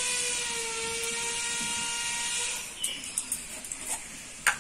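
Mud-coated iron kadai on a wood fire, its wet clay coating sizzling: a steady hiss with a faint whine drifting slowly down in pitch, which stops about two and a half seconds in. Light clicks follow, then one sharp click near the end.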